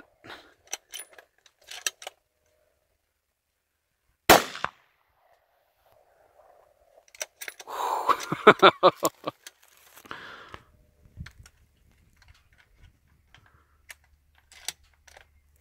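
A single hunting rifle shot about four seconds in, a sharp crack with a short tail: a follow-up shot at a wild pig. About three seconds later comes a loud, pitched, broken sound lasting about three seconds, the loudest thing here.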